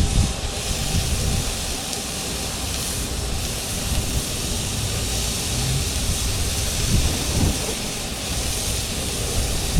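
Grass-fed ground beef burger patties sizzling on a hot grill, a steady hiss over a low rumble.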